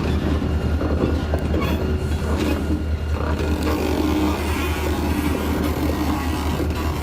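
Diesel locomotive, an EMD SD40-2 with a 16-cylinder two-stroke engine, running steadily during switching. Its low rumble holds throughout, with a few faint knocks.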